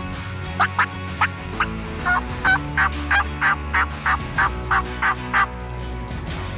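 Wild turkey calling: a run of about fifteen short, sharp notes, roughly three a second, over steady background music.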